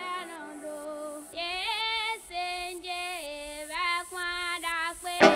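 Background music: a song with slow, held sung notes that waver in pitch, over soft accompaniment. A sharp hit comes near the end.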